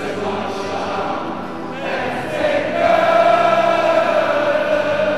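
Music with a choir singing over steady low accompaniment, swelling louder about halfway and holding a long note.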